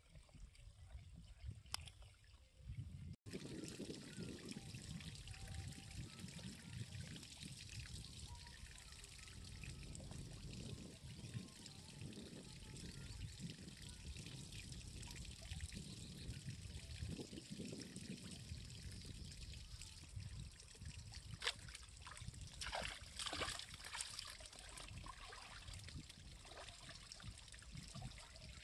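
Shallow canal water sloshing and trickling around a person wading, with a few sharper splashes about three-quarters of the way through.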